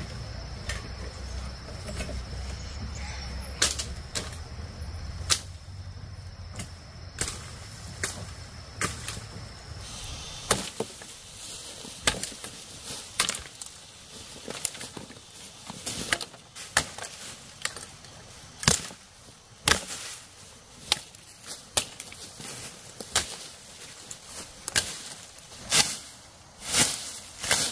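Repeated sharp strikes of a hand tool, a few spread out at first, then coming about once a second in the second half. For the first ten seconds a steady high insect buzz and a low rumble sit underneath; they cut off abruptly.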